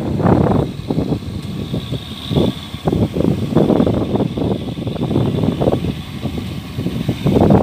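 Yanmar crawler combine harvester running as it cuts rice, heard under uneven gusts of wind on the microphone.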